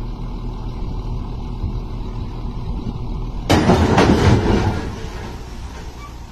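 Heavy truck's diesel engine running steadily. About three and a half seconds in, a sudden loud rushing noise breaks in, then fades away over a second or two.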